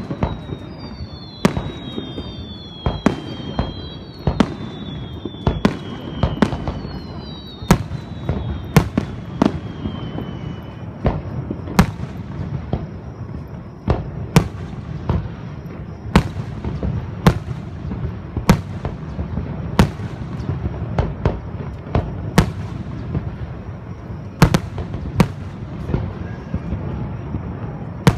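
Aerial firework shells bursting one after another, a sharp bang every second or so over a continuous low rumble. In the first ten seconds several overlapping whistles glide downward in pitch.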